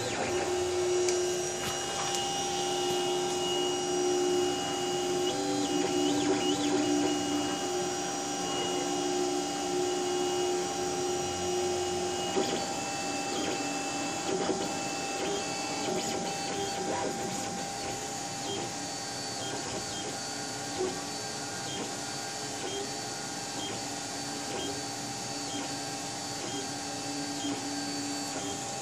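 Custom-built large-format 3D printer running: its stepper motors give out steady tones that jump to new pitches as the head changes moves, in quicker, repeating changes from about twelve seconds in, over a constant fan hum.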